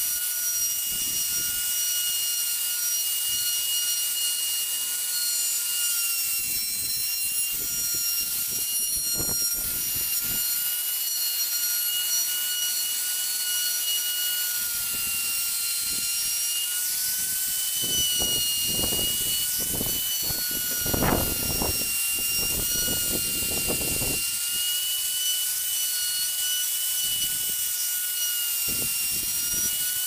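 Electric plunge router running at speed with a steady high whine while its bit cuts away the background of a carved pattern in a wooden panel. Rough grinding bursts come as the bit bites into the wood, heaviest from about 18 to 24 seconds in, where the whine sags slightly under the load.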